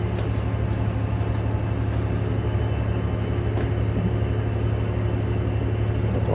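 Diesel railcar's engine heard inside the passenger cabin: a steady low drone with a constant hum over it, unchanging throughout.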